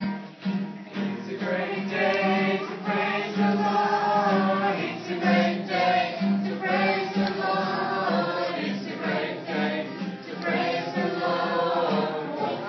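A group of young children singing a song together, accompanied by a strummed acoustic guitar.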